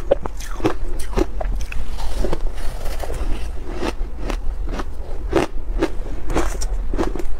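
Close-miked crunching of shaved ice being bitten and chewed, sharp irregular crunches about two or three a second.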